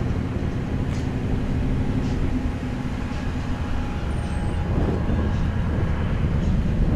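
Steady low rumble of an engine, with a faint hum that fades about four seconds in.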